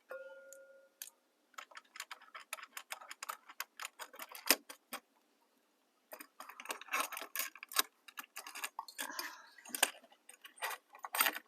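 Rapid small metal clicks and taps, with a short pause midway and some scraping: a light fixture's metal mounting brace and its screws being handled and fitted in place. A brief steady tone sounds at the very start.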